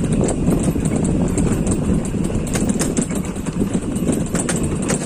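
Honda Click scooter riding over rough off-road ground: a steady engine and wind rush, broken by frequent short knocks and rattles from the bumpy going.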